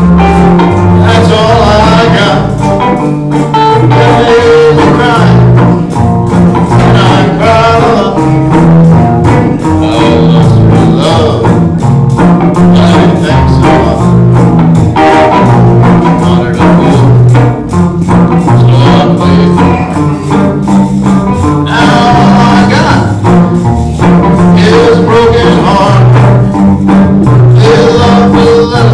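Live classic country band playing: a man singing over electric bass, guitar, and a washboard scraped in a steady, quick rhythm.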